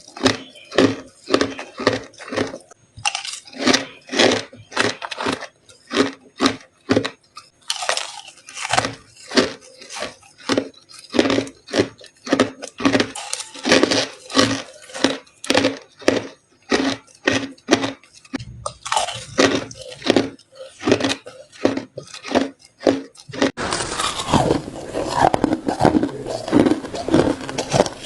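Crushed ice being bitten and crunched close to the microphone, with sharp crunches coming two or three a second. A little over 23 seconds in, the crunching turns denser and almost unbroken.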